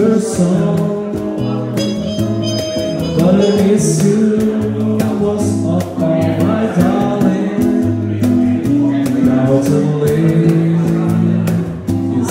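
Live Brazilian jazz song: a man singing to acoustic guitar accompaniment, with sustained low bass notes and a steady rhythm of short percussive clicks.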